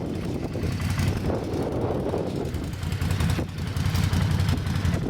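Strong wind buffeting the microphone, a steady low rumble that rises and falls.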